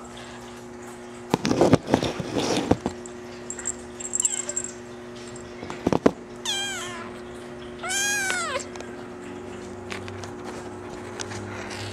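Maine Coon kitten meowing twice, about six and a half seconds in: two high calls a little over a second apart, each falling in pitch at the end. Earlier, a loud cluster of knocks and scuffles is the loudest sound, over a faint steady hum.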